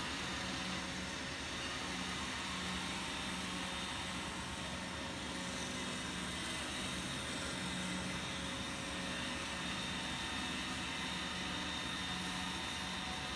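Steady whir of electric pedestal fans running together with a Roomba robot vacuum's motors as it drives about, with a low hum that comes and goes.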